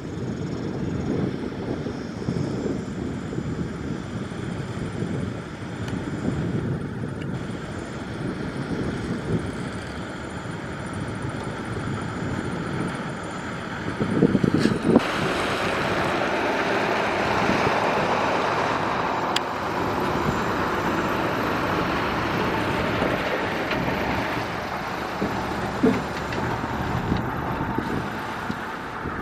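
Caterpillar 140H motor grader working a gravel road: the diesel engine rumbles steadily. About halfway through the sound grows louder and brighter, with a hiss added over the rumble.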